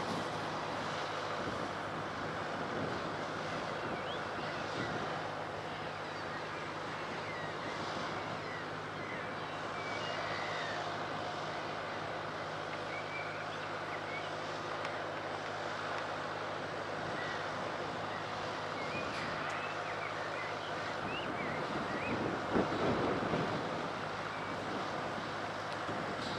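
Steady distant rumble of the steam locomotive 60163 Tornado approaching along the main line, mixed with wind noise, faint high chirps, and a short louder burst near the end.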